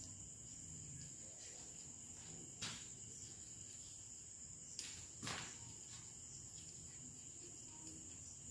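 Chalk writing on a blackboard, with a few sharp taps about two and a half and five seconds in, over a faint, steady, high-pitched background tone.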